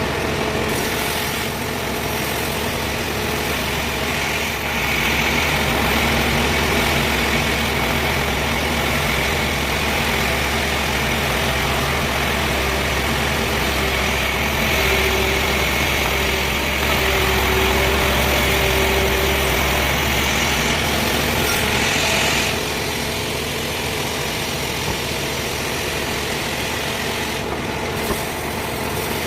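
Sawmill machinery running steadily with a low engine drone, getting louder with a high whine from about five seconds in until about twenty-two seconds in.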